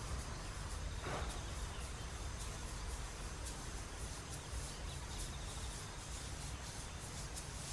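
Outdoor field ambience: low wind rumble on the microphone, with faint short high chirps scattered throughout.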